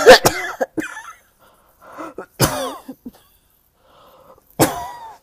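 A person with a head cold and sore throat coughing in a short spell: a harsh cough right at the start, another about halfway through and a third near the end, with faint intakes of breath before the later two.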